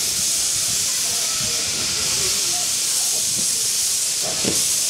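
Miniature 15-inch-gauge steam locomotive venting steam with a loud, steady hiss.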